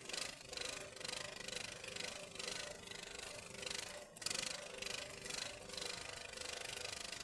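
Steel rebar tie wire being twisted tight, heard as short rasping, scraping strokes a few times a second.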